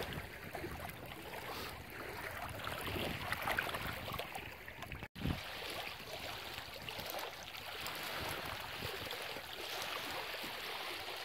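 Wind and small lake waves lapping at the shore: a steady rushing noise. It breaks off for an instant about halfway through, then carries on the same.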